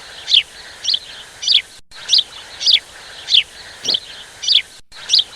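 A bird calling over and over: about nine short, falling chirps, evenly spaced. The sound cuts out for an instant twice.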